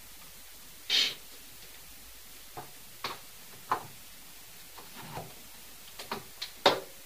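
A scattered series of short, sharp knocks and clicks, about eight of them at uneven intervals, the loudest about a second in and near the end; the resident takes them for pounding from the flat above.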